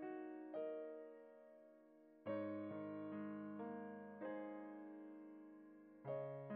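Slow background piano music: single notes and chords struck one after another, each fading as it rings, with fuller chords about two seconds in and again near the end.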